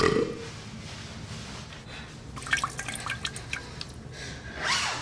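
Water dripping in a bathtub: a run of short, sharp drips starting about two and a half seconds in, over a faint steady hum, with a brief louder sound near the end.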